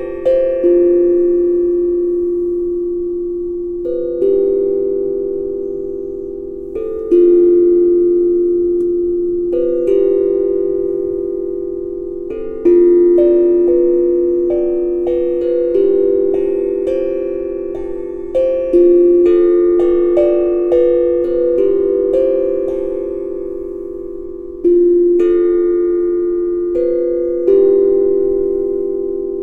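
Tongue drum played slowly with mallets: single struck notes, now and then two in quick succession, each ringing on and fading before the next.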